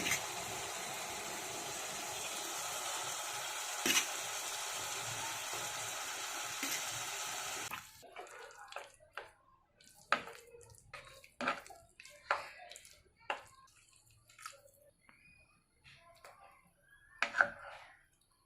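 Water running steadily from a kitchen tap for about eight seconds, then stopping abruptly, followed by scattered light clicks and knocks of utensils.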